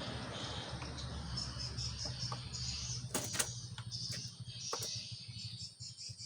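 Birds chirping repeatedly over a low, steady machine hum, with a few sharp clicks.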